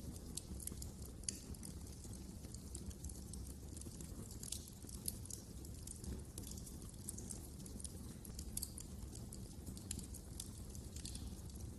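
Wood fire crackling: irregular sharp snaps and pops over a low, steady rumble.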